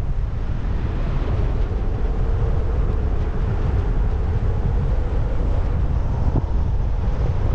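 Wind buffeting the camera microphone during a tandem paraglider flight: a loud, steady rushing rumble.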